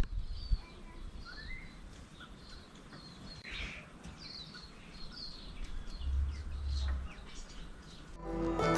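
Several birds chirping and whistling in the bush, short scattered calls with one rising whistle a little over a second in. A brief low rumble comes around six seconds in, and music starts near the end.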